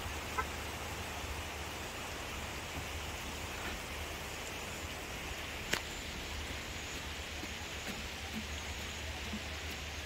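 Steady rush of a mountain stream flowing over rocks, with one sharp click about six seconds in.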